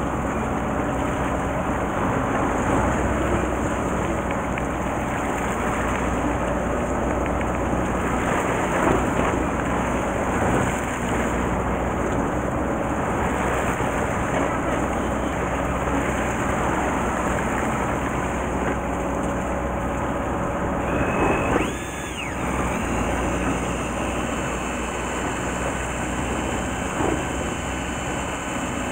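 Steady noise of a fishing boat at sea: the engine running low under water washing along the hull. A little past twenty seconds in, a brief whine rises, holds and drops away.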